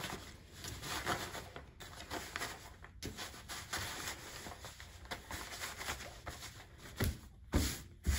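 Wax paper and a fabric pillowcase rustling as the paper is pushed and smoothed inside the case, with a few soft thumps near the end.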